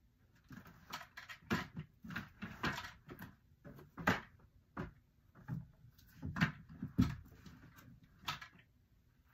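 Irregular knocks, clicks and rustling of objects being handled and moved about at close range, about a dozen separate sounds.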